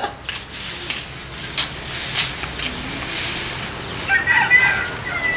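Straw broom sweeping a concrete yard in repeated swishing strokes. About four seconds in, a chicken calls once, briefly.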